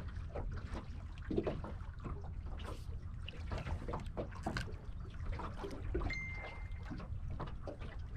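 Water slapping and knocking against the hull of a small aluminium tinny, with wind rumbling on the microphone. About six seconds in there is a short, steady high tone.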